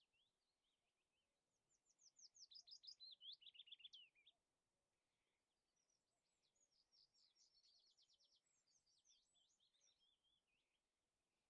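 Faint songbird singing in rapid trills and chirps, with a louder phrase about two seconds in and a longer, softer one from about six seconds.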